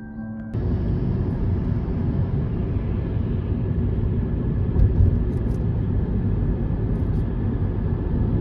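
Steady road and wind noise from a moving car, deep and rushing, starting abruptly about half a second in, with one low thump around five seconds in.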